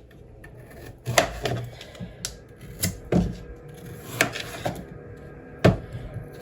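Knife cutting a potato on a chopping board: irregular sharp knocks as the blade hits the board, about seven of them, unevenly spaced.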